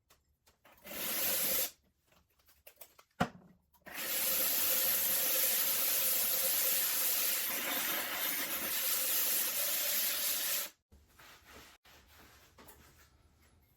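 The foot of a glaze-fired ceramic piece ground against a wet diamond disc: a short gritty rasp of about a second, a sharp knock, then a steady rasp for about seven seconds that stops abruptly.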